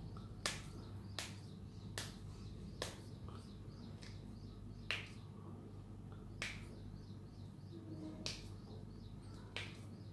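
Finger joints cracking one after another as the fingers are pulled and adjusted: about eight sharp, short pops, irregularly spaced a second or more apart.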